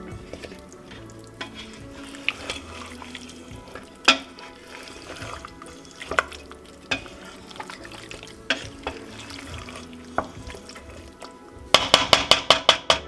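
Food frying in a cooking pot while being stirred, with a spoon knocking and scraping against the pot every second or two. Near the end comes a quick run of about ten sharp taps.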